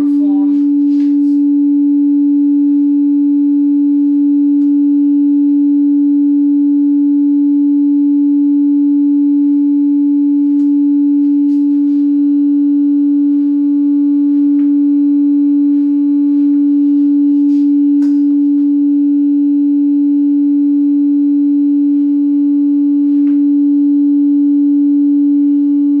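A steady, loud 287 Hz sine test tone (near D4) from a signal generator app, played through a loudspeaker, with faint overtones. It is held unbroken, as a test signal for measuring how much a tuned Helmholtz absorber panel cuts that frequency.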